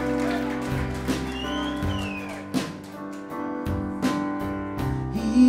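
Acoustic guitar strummed, chords ringing on between strokes as the song's instrumental accompaniment.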